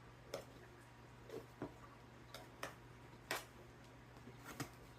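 Light, irregular taps and clicks against a loaf pan as a freshly baked loaf is worked loose, about eight faint knocks spread unevenly.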